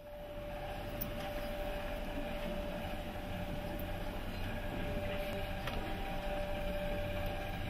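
A steady rumbling drone with a constant mid-pitched hum running through it, fading in at the very start, with a few faint clicks.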